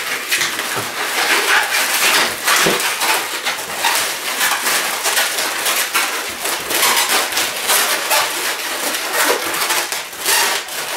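Latex 260 twisting balloons squeaking and rubbing against one another as they are twisted and handled, a dense, unbroken run of squeaks and crinkles.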